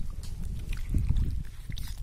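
Soup sloshing as a ladle stirs it in a metal pot, a rough low rumble with a few light clicks, loudest about a second in.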